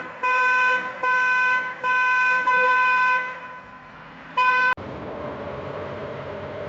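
Car horn honking: four blasts in quick succession, the last held longest, then one short blast about four and a half seconds in that cuts off sharply. A steady low rumble of engine or road noise follows.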